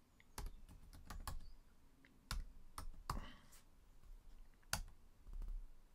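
Computer keyboard being typed on: a run of faint, irregular key clicks, with one louder keystroke near the end.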